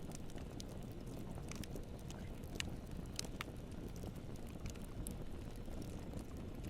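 Campfire burning: a steady low rumble of flames with irregular sharp crackles and pops of wood.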